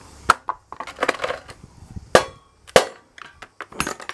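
Scrap hot plate being pulled apart by hand: a series of sharp knocks and clacks as the black plastic housing is worked off the round metal pan.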